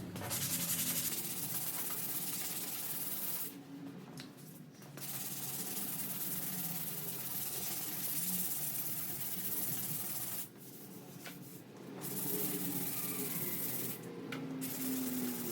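Hand sanding with a sanding block, sandpaper rubbing back and forth over guide-coated bodywork on a car door to show up low and high spots. The rasping runs steadily, with three brief pauses about three and a half, ten and a half and fourteen seconds in.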